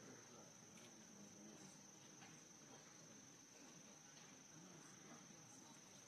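Near silence with faint, steady high-pitched cricket song running throughout.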